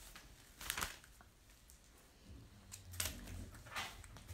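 Light clicking and rustling from small objects being handled, in two short clusters: one just under a second in and a longer one around three seconds in.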